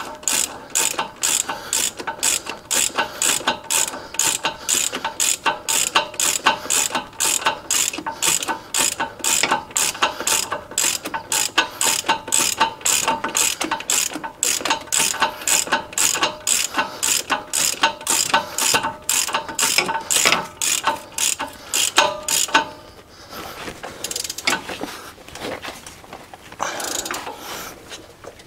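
Hand ratchet clicking rapidly and steadily as the four unit-bearing hub nuts on a Dana 60 front knuckle are run down tight. The clicking stops near the end, leaving a few quieter handling sounds.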